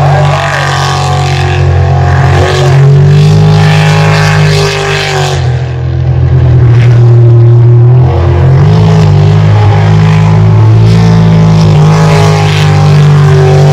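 Jet sprint boat's engine running at high revs, very loud, its pitch dropping about two seconds in and climbing again about eight seconds in.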